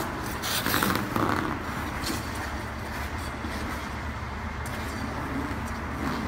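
Figure skate blades scraping and carving on the ice, with a few sharper scrapes in the first second or so, over a steady low hum of the rink.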